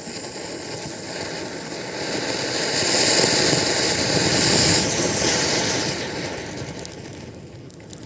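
Flower pot (ground fountain firework) spraying sparks with a steady hiss that swells to its loudest a few seconds in and then dies away.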